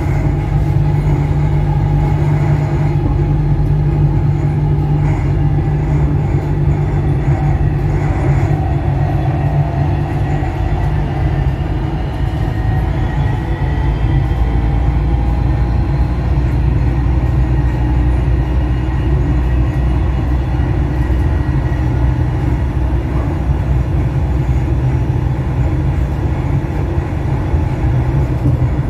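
Dubai Metro Red Line driverless train running at speed on elevated track, heard from inside the carriage: a steady rumble of wheels on rail, with a faint whine that slowly drifts in pitch.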